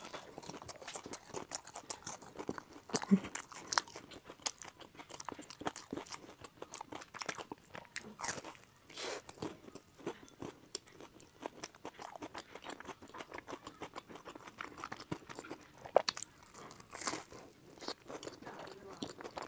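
Close-miked biting and chewing of glutinous pumpkin cakes with a sesame-studded crust: irregular crisp crunches and crackles of the crust over wet chewing sounds, with the sharpest, loudest crunches about three seconds in and again about sixteen seconds in.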